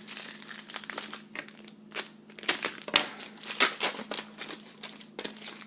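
Crinkling and crackling of a trading-card pack's wrapper being handled and crumpled, in a dense run of crackles that is loudest in the middle.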